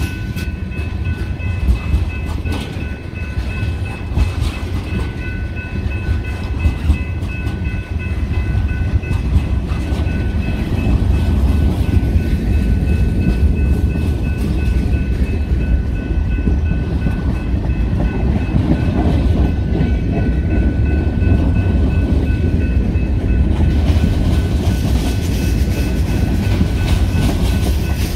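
Freight train's tank cars and covered hoppers rolling past: a steady low rumble of steel wheels on rail, with clicks of the wheels over rail joints. The rumble grows louder and denser about eleven seconds in, and a thin, steady high ringing runs through it.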